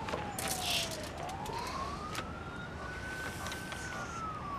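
A siren wailing in the distance: one pure tone that slowly falls, rises and falls again over several seconds. Paper rustles and a few light clicks sound close by, around a second in.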